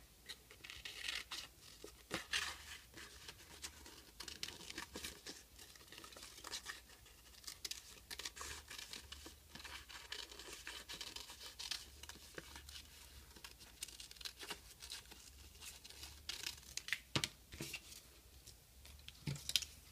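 Scissors snipping through paper, with the paper rustling and crinkling as it is turned and handled: faint, irregular snips and crinkles.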